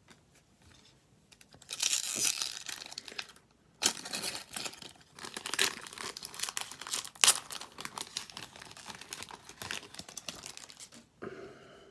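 Upper Deck hockey card pack wrapper being torn open and crinkled, in scratchy rustling bursts from about two seconds in until shortly before the end.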